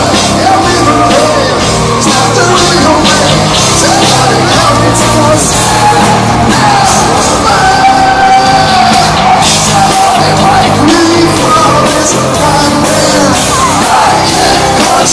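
Rock band playing live in an arena with a male lead singer, loud and continuous, with held sung notes.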